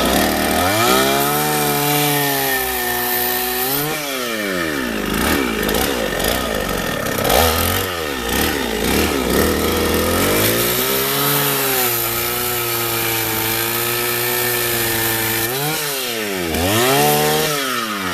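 Chinese-made petrol chainsaw's two-stroke engine running, revved up and held high, then dropping back, several times over.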